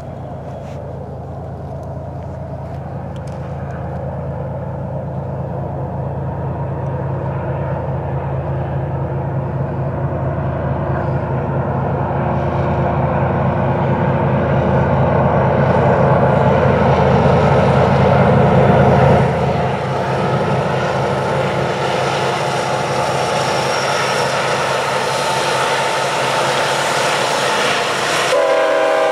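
Diesel freight train hauling double-stack container cars: the locomotives' engine drone grows steadily louder as they approach and drops away as they pass about 19 seconds in. The cars then rumble past on the rails, and a multi-note air horn starts sounding just before the end.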